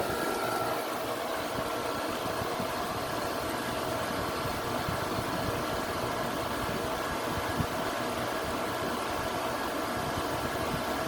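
Whirlpool window air conditioner running on its medium setting: the fan blows a steady rush of air while the compressor runs quietly underneath, with a faint steady hum.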